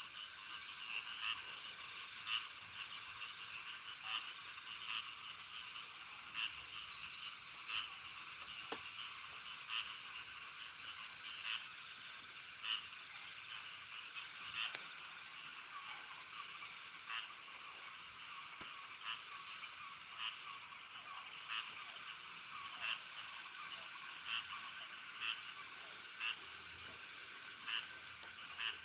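Frogs calling in short repeated croaks, roughly one a second, over steady high-pitched trilling from insects.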